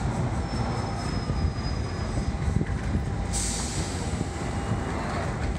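London Underground Central Line 1992 Stock train rumbling as it brakes along the platform to a stop. A thin high squeal sounds during the first couple of seconds, and a sudden hiss starts about three seconds in.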